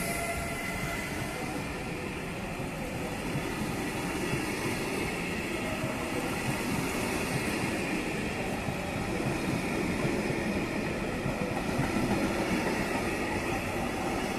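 Passenger coaches rolling past at speed, a steady rumble of wheels on rail that grows a little louder toward the end. A high electric locomotive whine fades out in the first couple of seconds as the locomotive moves off.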